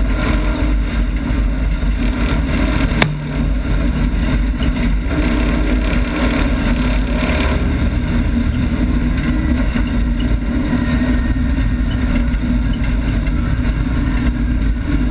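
Citroën 2CV's air-cooled flat-twin engine running hard under racing load, heard from inside the cabin, its pitch shifting a few times. There is one sharp knock about three seconds in, with the engine briefly lower just after it.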